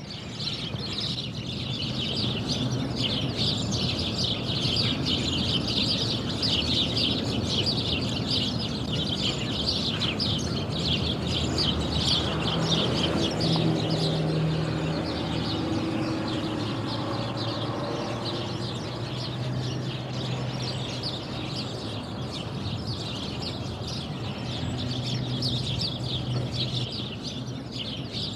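Countryside ambience: a dense, continuous chorus of many small birds chirping. Under it a faint low drone comes and goes, strongest about halfway through.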